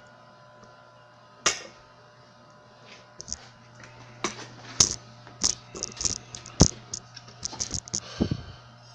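Light clicks and metallic taps from handling an aluminum tube and a modified F-connector crimper while seating the tube in the tool. There is one tap about a second and a half in, then a quick run of them between about four and eight seconds in, over a steady low hum.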